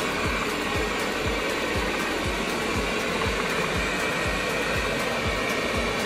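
Roborock S8 Pro Ultra robot vacuum running, a steady even whir of its suction motor, with background music's regular beat about twice a second underneath.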